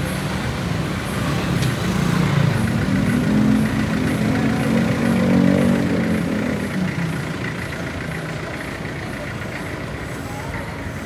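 Motor vehicle engine passing close by over street traffic noise: a low engine hum swells about two seconds in and fades away a few seconds later.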